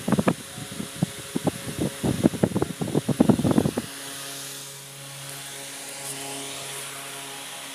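Air blast from a running electric pedestal fan buffeting the microphone in irregular gusts, cutting off abruptly about four seconds in. After that comes a steady low electric hum.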